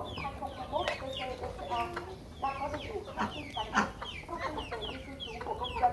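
A flock of chickens clucking: many short, falling calls overlapping one another without a break.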